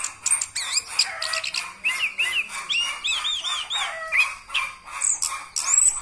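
Chestnut-capped thrush (anis kembang) in full continuous rolling song, called ngerol: a fast, unbroken run of varied whistles, chirps and glides with phrases copied from other birds, including a quick string of arched notes about halfway through. This non-stop rolling song is the sign of a bird in top singing form.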